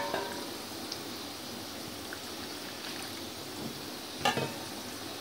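A steady low hiss, with one sharp clink of a kitchen utensil against a dish about four seconds in.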